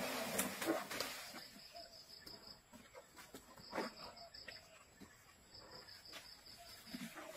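An Asian elephant feeding in grass: rustling of vegetation and crunching as it takes up its food, loudest in the first second and again near four seconds in. Insects chirr in a high pulsing buzz that comes and goes in spells.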